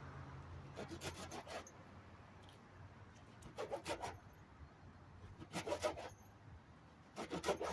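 Kitchen knife slicing ingredients on a cutting board, in four short bursts of quick cuts and taps.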